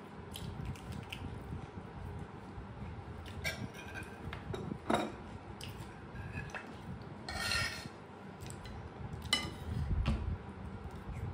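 Metal spoon scraping and clinking against a plate as curry is scraped from one plate onto another, in scattered short clicks and scrapes.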